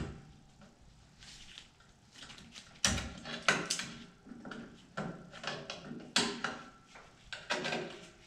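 Metal clicks and clinks of rear drum brake hardware (shoes, return springs and clips) being worked into place on the backing plate of a 1997–2004 Ford F-150. The clicks begin about three seconds in and come about nine times at uneven spacing.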